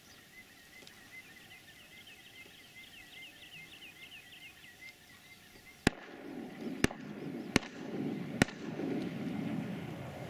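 Four shotgun shots in quick succession at scaup flushing off the water, all within about two and a half seconds. Each shot is followed by the rushing splash and wingbeats of the flock taking off. Before the shots there are faint repeated bird calls.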